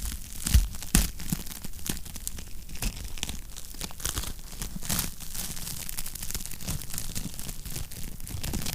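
Wood fire crackling in a fireplace: a dense run of small pops and snaps, with two louder pops about half a second and a second in.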